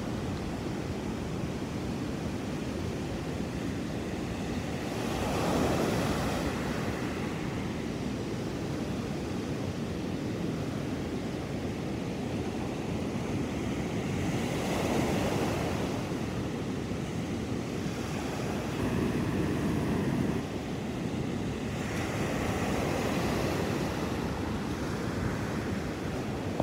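Ocean surf on a sandy beach: a steady wash of waves, swelling louder four times as waves break and run up the shore.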